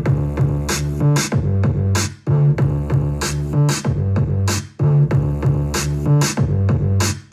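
Boom bap hip-hop beat from an Akai MPC One: hard, regular drum hits over a looping, bass-heavy sample.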